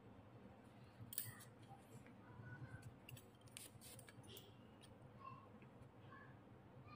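Faint, sharp snips of steel cuticle nippers cutting thick dry skin at the edge of a thumbnail: a few clicks, the loudest about a second in, and several more in the middle.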